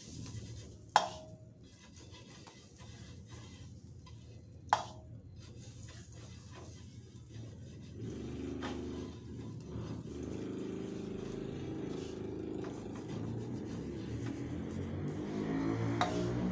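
Two sharp metallic clinks, about a second in and again near five seconds, from the grilling gear. From about eight seconds a motor vehicle's engine hums, growing louder toward the end as it comes closer.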